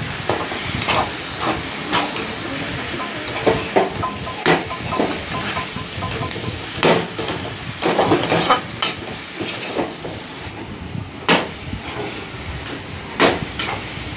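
A metal ladle scraping and knocking in a kadai as vegetables and sauces are stir-fried, over a steady sizzle. The scrapes come irregularly, about one a second.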